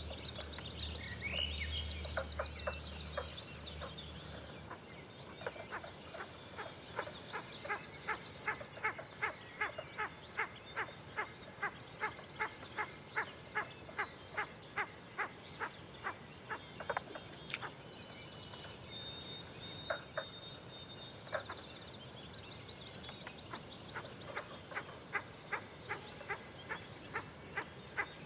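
A frog calling in a steady series of short croaks, about two a second, that stops for a while and starts again near the end. Birds sing fast trills above it.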